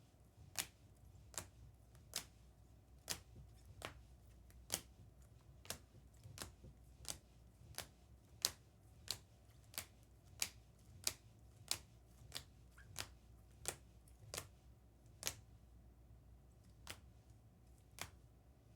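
Trading cards being flipped one at a time in the hand, a faint crisp snap about every 0.7 seconds, around two dozen in all, with a slightly longer gap near the end.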